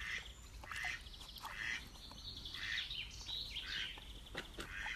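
White domestic ducks quacking: about half a dozen short, rasping quacks over four seconds.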